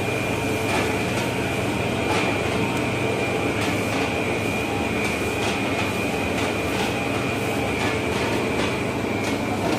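Commercial spiral dough mixer running, its hook kneading a large batch of bread dough in the steel bowl: a steady motor hum with a steady high whine and scattered soft knocks.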